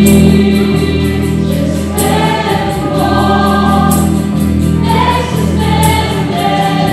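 Christian worship band playing a song: a group of men and women singing together into microphones, backed by keyboard, acoustic guitar and bass guitar, over a steady beat with an accent about every two seconds.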